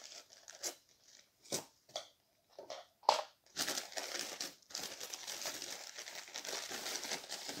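Newspaper wrapping crinkling and rustling as it is pulled open by hand around a plant: a few separate short crackles at first, then continuous crinkling from about halfway through.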